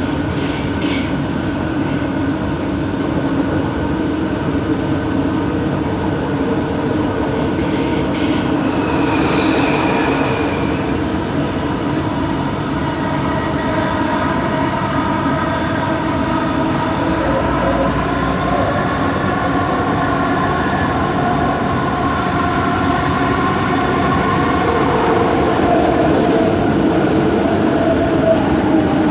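Bombardier Innovia ART 200 metro train running, heard from inside the car: a steady rumble under a whining motor noise of several tones that slowly rise in pitch through the second half. The whine comes from the train's linear induction motor propulsion.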